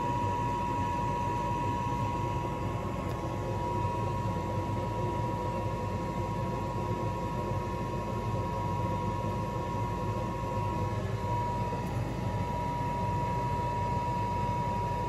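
Steady background hum and hiss with a constant high-pitched whine, like a running appliance or ventilation unit.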